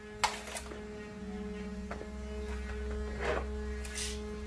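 Steady electrical hum, with a sharp knock just after the start and two short scraping noises about three and four seconds in, from plywood panels and tools being handled.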